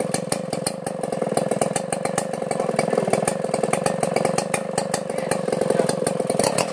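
Two-stroke chainsaw engine running steadily at an even speed, not cutting.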